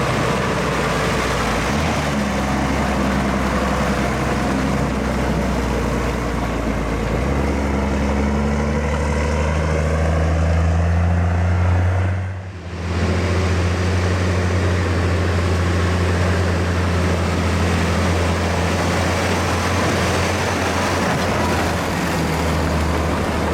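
Heavy diesel farm machinery running steadily in a continuous low drone. The drone steps up in pitch about a third of the way in and briefly drops out near the middle.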